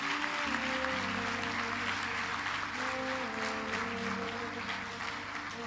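Audience applauding, a dense steady clapping. Held notes of background music sound underneath.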